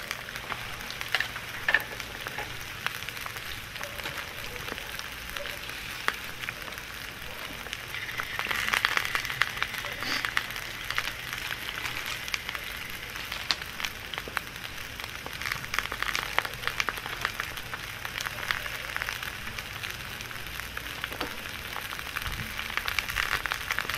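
Sliced onions and meat sizzling on hot stones in a cast-iron cauldron: a steady frying hiss dotted with frequent sharp crackles. It swells louder about eight seconds in and again around sixteen seconds.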